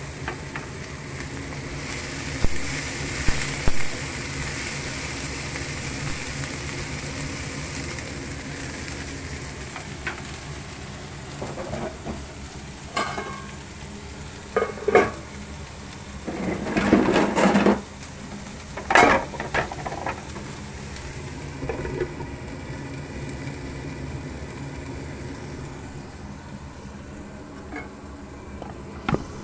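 Long beans and onion sizzling in oil in a nonstick frying pan, a steady hiss that grows duller over the last several seconds. Several clatters of a wooden spatula and the pan's lid against the pan, the loudest a little past the middle.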